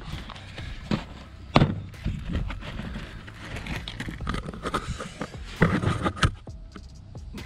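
Handling noise: scuffing and irregular knocks and thuds as a handheld camera is carried around a pickup's open hood and set down on it. The loudest knocks come about a second and a half in and in a quick cluster near the six-second mark.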